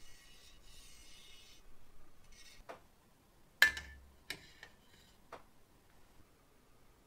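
A thin, curved metal helmet piece being handled with a faint rustle, then set down on top of a steel bench vise. It lands with one sharp metallic clank that rings briefly, about halfway through, followed by two lighter taps as it settles.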